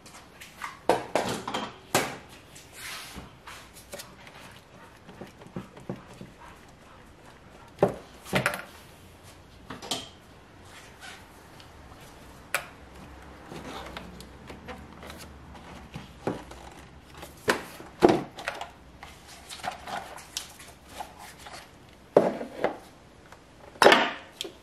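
Irregular hard-plastic clicks, knocks and scrapes from an engine's air cleaner housing being handled: the intake duct worked loose and the housing lid lifted off to expose the air filter. The loudest knocks come in clusters about a second in, around eight seconds in, and near the end.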